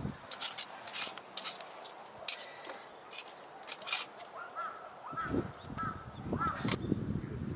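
Scattered sharp clicks and clinks, like camp cookware and utensils being handled, with a short honking call repeated about five times in quick succession late on.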